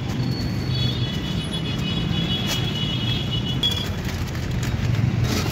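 Steady roadside traffic and street noise with a low hum, and a high steady tone from about one second in until nearly four seconds.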